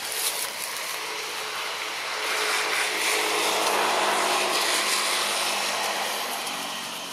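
Engine noise of a passing motor vehicle, swelling about two seconds in and fading near the end.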